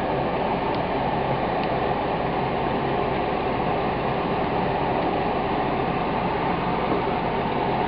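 Steady fan noise, an even whoosh that holds at one level throughout.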